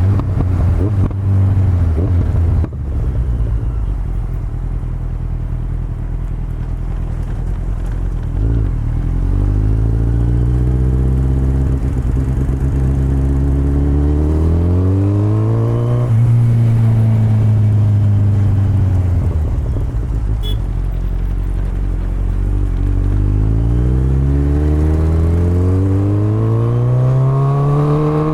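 Kawasaki Z900's inline-four engine through an Akrapovic exhaust, running steadily at first, then revving up with a rising note from about a third of the way in, easing off around the middle, and climbing again near the end.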